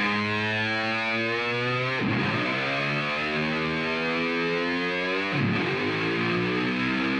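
Background music led by a distorted electric guitar: long held notes that slowly bend upward, broken twice by a sweeping dip in pitch.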